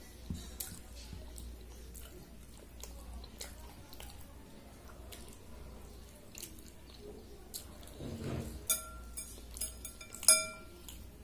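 A hand mixing and scooping watery rice in a ceramic bowl: soft wet squishing and faint clicks, then a few sharp ringing clinks of the hand against the bowl near the end, the last the loudest.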